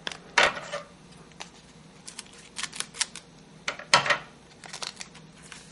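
A pack of hockey trading cards being opened and handled: the wrapper crinkles and tears, and the cards click and slide in a series of short crackles. The loudest comes about four seconds in.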